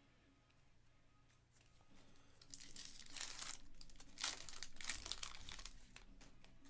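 Foil wrapper of a Panini Prizm basketball card pack crinkling and tearing as it is ripped open by hand, in a few sharp crackly bursts starting about two seconds in.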